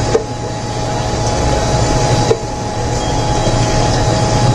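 Steady low mechanical hum, with two sharp knocks about two seconds apart, plausibly a steel ladle striking the rim of a steel pot.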